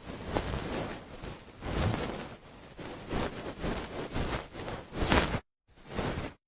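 A fluffy dog tail rubbed against a binaural microphone's ear for tail ear cleaning: soft rustling strokes that swell and fade, with a brief cut to silence near the end.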